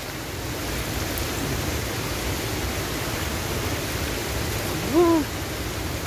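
Steady noise of flowing water from the waterfall and its spring-fed streams. About five seconds in there is one short voiced sound that rises then falls in pitch.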